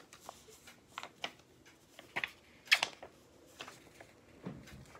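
Sheets of paper rustling and crinkling as they are handled, in short scattered crackles, the loudest about three seconds in.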